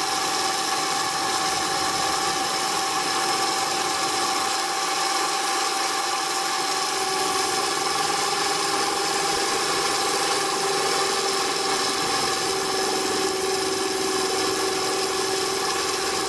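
3D-printed Pelton turbine spinning in a water jet, its small DC motor-generator giving a steady whine over the hiss of water spraying inside the housing. It is running under electrical load.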